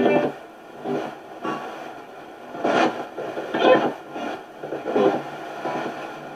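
Spirit box (ghost box) sweeping through radio stations, giving short, choppy bursts of static and broadcast voice fragments roughly once a second.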